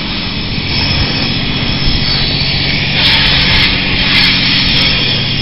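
Self-service car wash equipment running with a steady low hum under a hiss of water, the hiss swelling for about a second around three seconds in.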